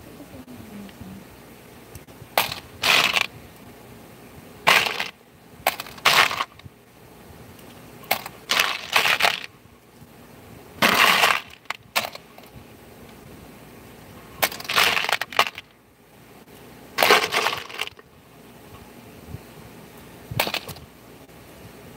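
Small metal parts clattering and clinking against each other and a plastic bin as they are handled and dropped back, in short bursts every two to three seconds.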